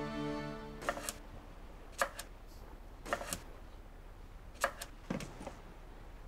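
Background music fades out within the first second, then a handful of soft, short clicks and taps come at irregular intervals.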